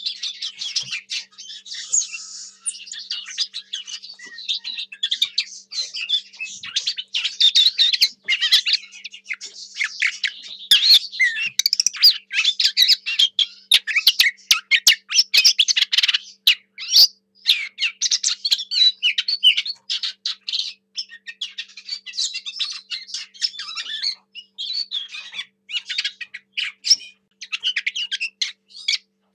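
Lesser whitethroat singing a long, rambling warble of rapid, varied chattering notes, with only brief pauses.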